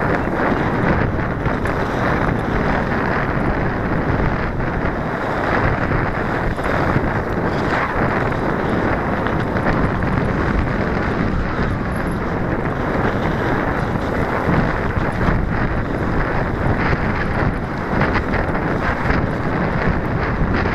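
Wind buffeting the microphone of a Mobius action camera on a Cannondale full-suspension mountain bike rolling down a dirt trail: a steady, loud rushing noise with faint knocks from bumps in the trail.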